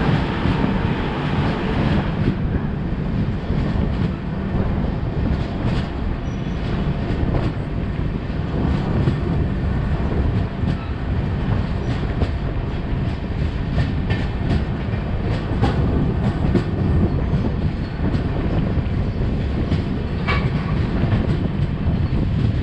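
Durg Humsafar Express coaches running on the line, heard from aboard: a steady low rumble of wheels on rails with scattered clicks over the rail joints.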